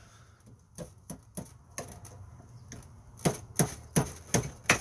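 Sharp metallic clicks of pliers working the propeller's cotter pin on a small outboard's lower unit, bending the pin over so the prop stays on. A few faint clicks come first, then about five sharper ones in quick succession in the last second and a half.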